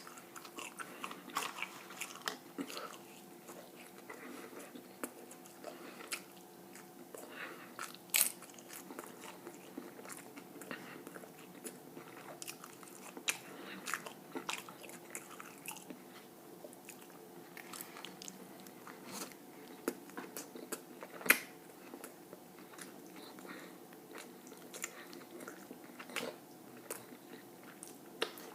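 A person chewing and biting food close to the microphone: wet mouth clicks and small crunches throughout, with sharper, louder clicks about eight seconds in and again near twenty-one seconds, over a faint steady hum.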